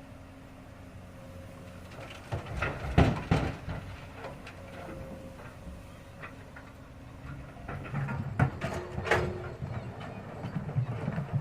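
Komatsu excavator loading stone: the engine runs with a steady low hum, broken by bouts of clattering and knocking as rock scrapes and tumbles in and out of the bucket. The bouts come about two seconds in and again from about eight seconds.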